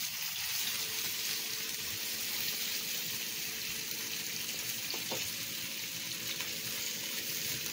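Boiled potato cubes frying in hot oil in a pan, a steady sizzle throughout, with a single light knock about five seconds in.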